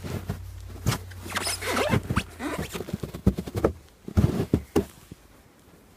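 Handling noise from a phone held by a small child: irregular rubbing, scraping and knocks of fingers and hands on the device and its microphone, with a low hum that drops out about five seconds in.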